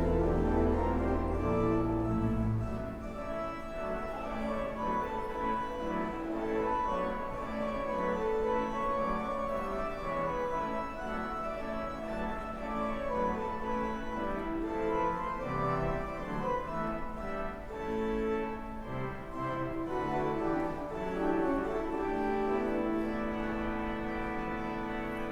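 Organ music: sustained chords under a moving melody, with a deep bass note held at the start that drops out about two seconds in.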